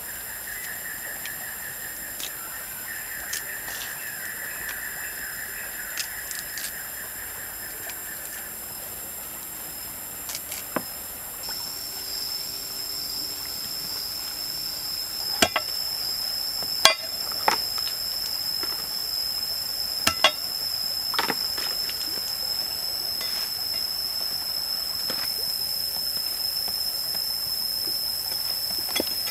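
Hands tearing kaffir lime leaves and dropping ingredients into a wooden mortar, with a few sharp clicks and knocks in the middle. Behind it runs a steady high-pitched whine, with a second, higher-sounding one joining before halfway, and a rapid chirping trill in the first third.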